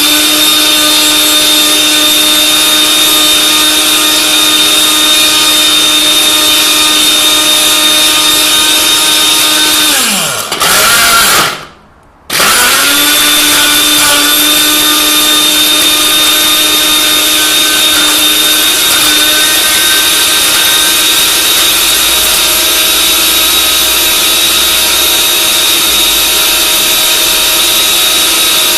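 Glass-jar countertop blender motor running at full speed with a steady high whine over a loud hiss, grinding the fragments of a smashed smartphone. About ten seconds in the motor winds down, gives a short burst, stops for a moment, then starts again, its pitch rising, and runs steadily.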